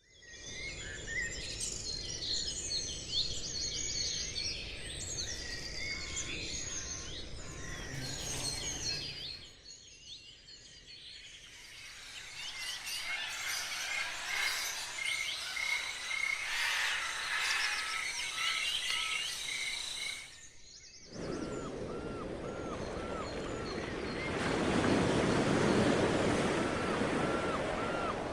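Many birds chirping and singing together over a low background rumble, easing off briefly about a third of the way in. After a sudden cut, a steady rushing noise carries a short call repeated about twice a second.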